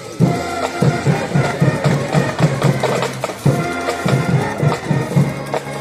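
Loud music with a steady, driving drum beat and held low notes under it, with crowd noise mixed in.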